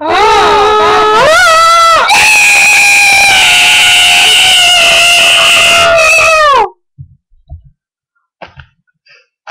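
Children screeching like an animal, two voices at once at first with pitches sliding down, then one long, high held screech that cuts off suddenly after about six and a half seconds. Very loud.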